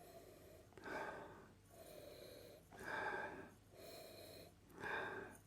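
A person sniffing whisky from a glass to take in its aroma: three faint sniffs about two seconds apart, with softer breathing between them.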